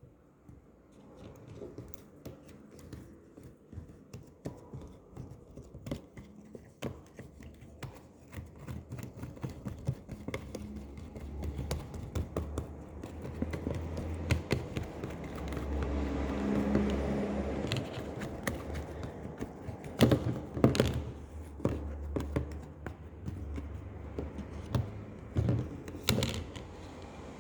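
Homemade glue-and-activator slime being stretched and kneaded by hand: a dense run of small sticky clicks and crackles that grows louder partway through, with a few sharper pops about 20 and 26 seconds in. A steady low hum sits underneath.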